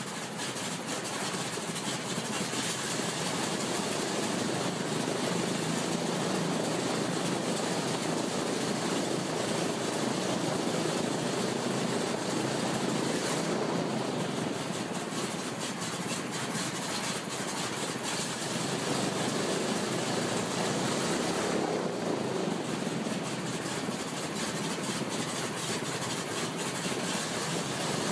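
Radial aircraft engine on a test stand running steadily, turning its propeller, with a dense, even exhaust and propeller noise that holds the same level throughout.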